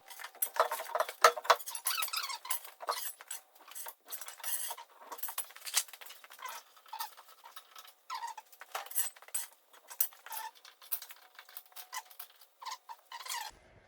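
Rapid, irregular light clicks and metallic clinks that go on throughout, thin-sounding with no low end, stopping just before the end.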